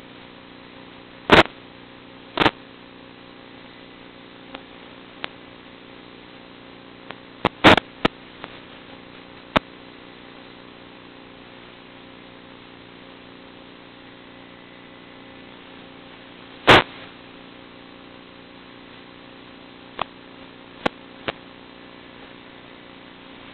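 A steady low hum with scattered sharp clicks, the loudest about a second and a half, two and a half, eight and seventeen seconds in.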